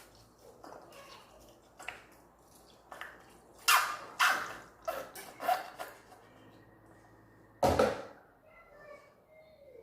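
Irregular knocks and clattering of objects being handled, a quick run of sharp ones about four to six seconds in and the loudest single knock near the end.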